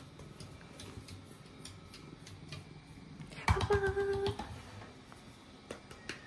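A cat jumping on and off a small wooden stool on a wooden floor, with a hand patting the stool top: light scattered taps, a louder thump about three and a half seconds in, followed at once by a short call held on one pitch.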